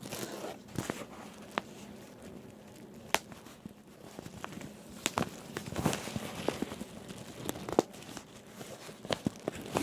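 Bubble wrap being handled and popped by hand: a continuous crinkling of the plastic with single sharp pops at irregular intervals, several close together around the middle and near the end.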